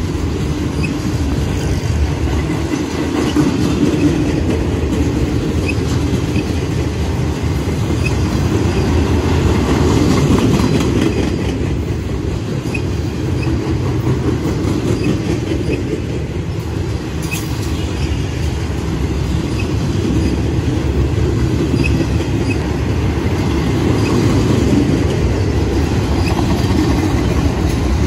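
Freight train of loaded flatcars rolling past at close range: a steady rumble of steel wheels on the rails, swelling and easing a little, with faint clicks at regular intervals.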